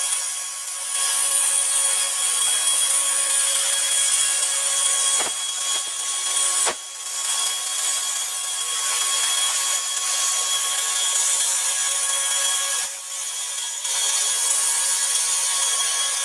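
MIG welding arc crackling steadily as a bead is laid on steel, breaking off briefly a few times, most clearly about a third of the way in and again near the end, where the arc is stopped and restarted.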